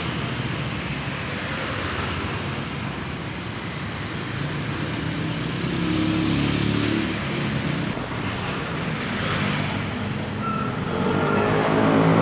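Road traffic passing: a steady rush of vehicles, with a large engine's drone building and growing louder near the end.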